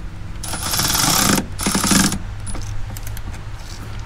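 Milwaukee M12 cordless ratchet running in two short bursts, a rapid rattling whirr of about a second and then a shorter one, as it drives down the catch can's mounting bolt.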